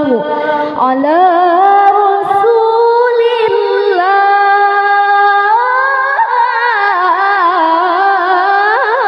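A woman's solo voice singing a sholawat in the melismatic Qur'an-reciter style: long held notes with wavering ornaments and vibrato, the melody climbing in pitch about a second in and again a little past halfway, sung close into a handheld microphone.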